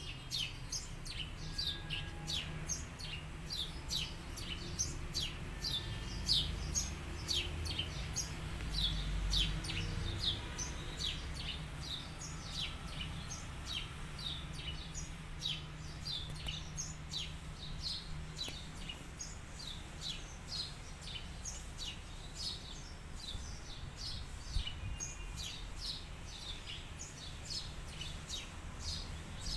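Small birds chirping busily, with many short high chirps following one another throughout, over a low steady rumble.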